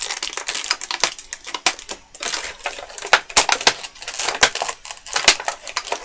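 Stiff plastic toy packaging crackling and snapping in a dense, irregular run as a figure that is stuck fast is pried and twisted out of it.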